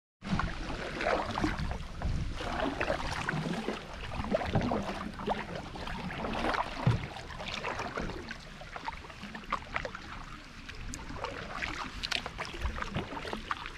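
Kayak paddling: a double-bladed paddle dipping into calm river water, with splashes and drips from the blades in an uneven rhythm.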